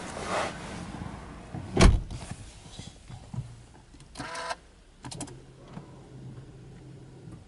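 Inside a Subaru Legacy Touring Wagon with the engine off: a loud thump about two seconds in, then a short electronic chime. After the chime comes a low steady electrical hum as the ignition is switched on, before the engine is started.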